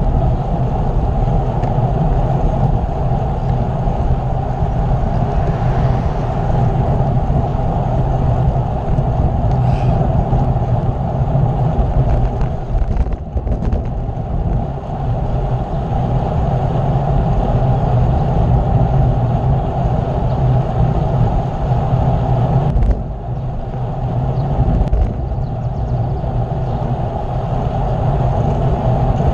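Steady wind rush on the microphone of a camera carried on a moving bicycle, with the level dropping suddenly about three quarters of the way through.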